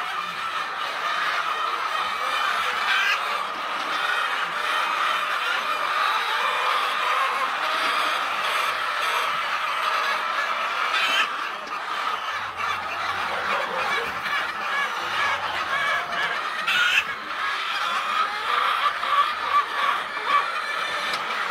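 Many birds calling at once in a dense, continuous chatter.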